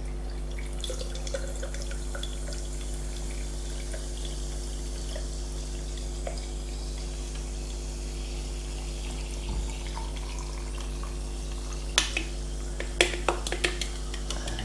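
Steady electrical hum made of several even tones, with faint light handling noise. A quick cluster of sharp clicks and clinks comes about twelve seconds in.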